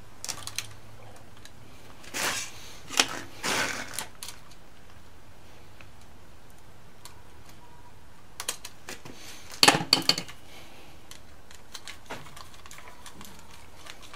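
Small clicks, taps and rattles of a wall switch and its wires being handled while the wires are hooked to the switch terminals, in a few short clusters with the loudest about ten seconds in.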